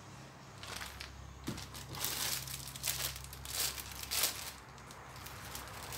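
Thin plastic bag crinkling in a run of irregular rustles as it is handled, with one light click about one and a half seconds in.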